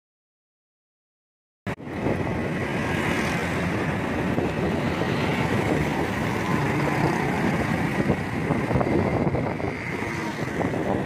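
After nearly two seconds of silence, city road traffic starts abruptly: motorcycles and cars running past in a dense, steady noise.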